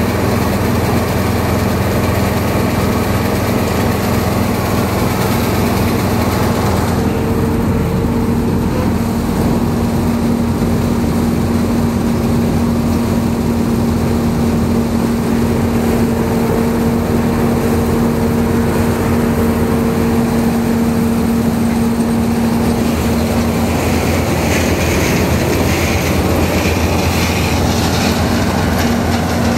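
Zmaj 170 RM combine harvester running steadily under load while harvesting soybeans: engine and threshing machinery running together, with a steady low hum setting in about seven seconds in.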